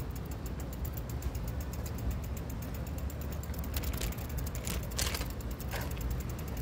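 Bicycle freewheel ticking rapidly and evenly as the bike coasts, over a low rumble of wind and tyres, with a few sharper clicks about four and five seconds in.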